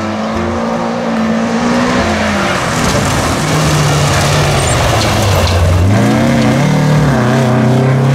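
Volkswagen Beetle rally car's air-cooled flat-four engine running hard on a gravel stage. Its note drops over the first few seconds, then revs up and down again, over a steady hiss of tyres on loose gravel.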